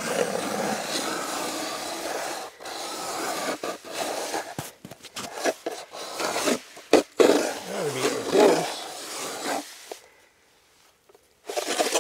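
Hand-cranked ice auger grinding and rasping as its blades bore into soft late-season lake ice. It turns steadily at first, then in short, broken strokes, and stops for about a second and a half near the end.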